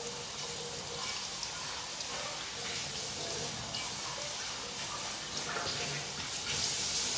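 French fries sizzling steadily in hot oil in a wok on a gas burner, a continuous hiss that grows louder near the end.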